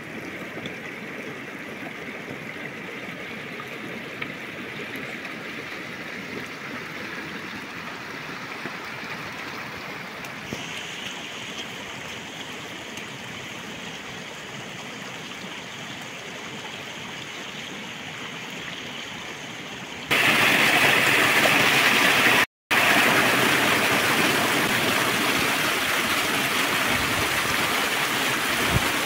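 River water running with a steady rushing sound. The sound turns much louder and brighter about two-thirds of the way through, with a momentary dropout just after.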